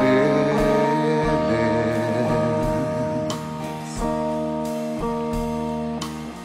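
Live acoustic music: two acoustic guitars playing a slow song with a man singing over them, the voice holding a wavering note in the first few seconds.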